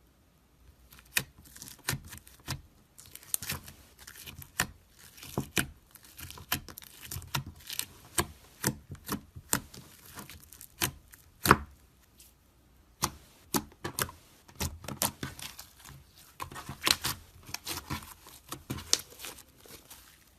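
Slime being worked by hand, making a run of sharp, irregular clicks and pops that start about a second in and come several a second at times.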